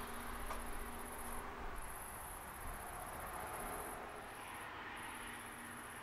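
Crickets trilling high-pitched in long runs of a second or two, broken by short pauses, over a faint steady low hum.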